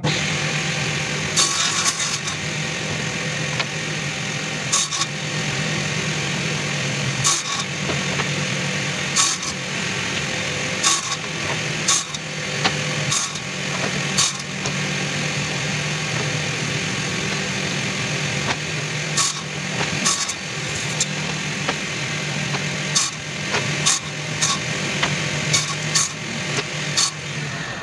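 A woodworking power tool motor runs steadily with a low hum and hiss, broken by sharp clicks and knocks at irregular intervals.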